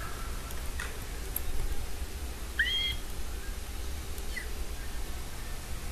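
A few short, high-pitched squeaky vocal noises made for a shark hand puppet, over a steady low hum. The clearest squeak comes about two and a half seconds in and bends up then down.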